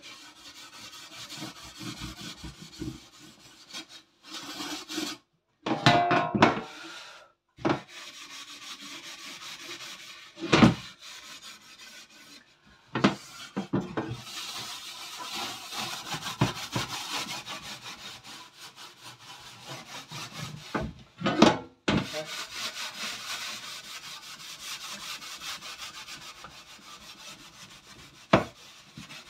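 Soap-filled scouring sponge scrubbed back and forth over a wet enamelled oven tray: a steady rasping rub with short pauses and a few louder knocks.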